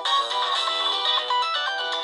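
Nokia 6680 mobile phone ringtone playing: a melody with several notes sounding together, the notes changing several times a second.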